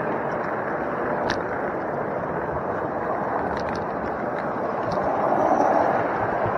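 Steady running rumble of a model railway wagon's wheels on the track, heard from a camera riding on the wagon, with a few sharp clicks along the way.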